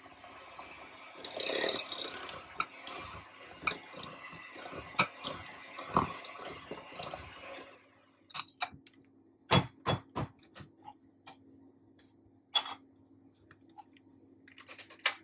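Electric hand mixer running, its beaters creaming margarine and caster sugar in a glass bowl and clinking against the glass. About eight seconds in the motor stops, and a few separate clinks and knocks follow.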